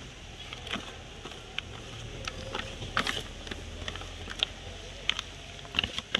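Irregular light clicks and knocks of a pestle and spoon in a mortar as a papaya salad is tossed, over a low steady rumble.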